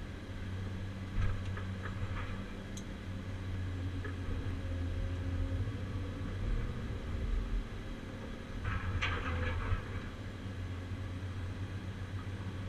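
CAT 345C UHD excavator's diesel engine and hydraulics running under load, heard from inside the cab, a steady low drone that swells and eases as the boom and shear move. Short bursts of clatter come about a second in and again about nine seconds in.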